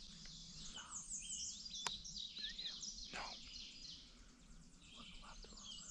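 Woodland songbirds singing: many overlapping high chirps and trills, with a downward-sliding whistle about three seconds in. A single sharp click sounds about two seconds in.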